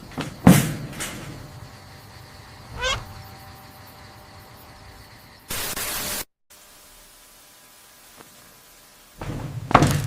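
Soft thumps, then a single short, wavering, rising kitten mew about three seconds in. A burst of static hiss comes near the middle and cuts off abruptly, and more thumps come near the end.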